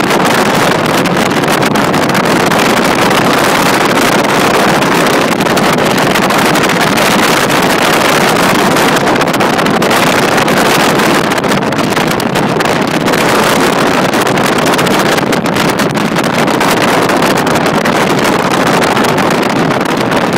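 Steady, loud rush of wind over the microphone at the open window of a moving vehicle, mixed with its tyre and road noise.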